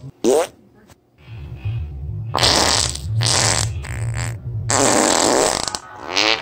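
A series of fart sounds: a short rising squeak near the start, then four loud buzzy blasts in quick succession from about two seconds in, and another rising squeak near the end.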